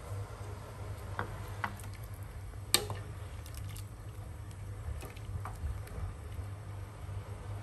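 Metal ladle stirring meat in a stainless steel pot of water, clinking against the pot several times, loudest a little under three seconds in, over a steady low hum.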